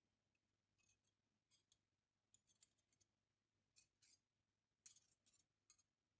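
Faint clicks and light metallic scrapes from an old pair of de-rusted steel scissors as the blades are opened and closed by hand, in several short clusters.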